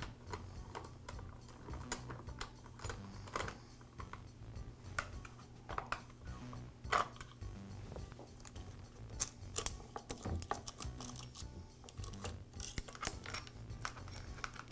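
Scattered metallic clicks and clinks as the bar nuts are worked off with a hand tool and the saw chain is pulled loose and lifted off the bar and clutch drum of an Echo chainsaw.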